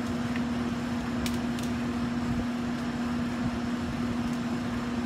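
Steady machinery drone with a constant low hum, unchanging throughout.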